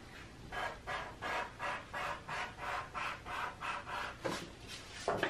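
A pen scratching across paper in quick short strokes, about three a second, as straight lines and stair steps are drawn.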